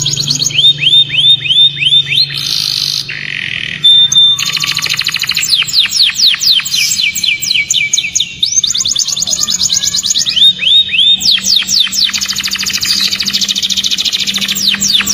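Domestic canary in full song: fast rolls of rapidly repeated whistled notes and trills, with a short buzzy passage about three seconds in and a brief held note just after.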